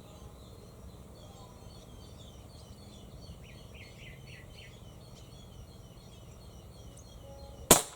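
Birds chirping in the background, then near the end a single sharp shot from a regulated Filarms Caiman .22 PCP air rifle.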